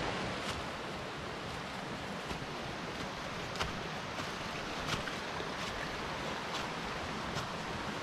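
Footsteps on a leaf-littered, rocky forest trail, a light sharp step roughly every second, over a steady rushing noise.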